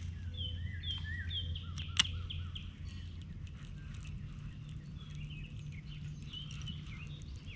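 Birds calling outdoors: a quick series of short, repeated down-slurred chirps, then more scattered calls a few seconds later, over a steady low hum. A single sharp click sounds about two seconds in.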